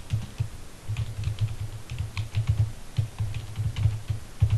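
Fast typing on a computer keyboard: a quick, uneven run of key clicks, each with a dull thud.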